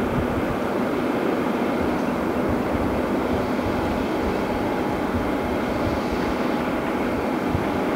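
Heavy diesel engine of a quarry truck or loader running steadily, a constant low hum under a broad mechanical drone.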